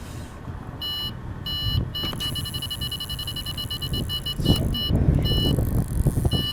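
Electronic carp bite alarm beeping: a few separate beeps, then a fast run of beeps from about two seconds in as a fish takes line, with wind buffeting the microphone.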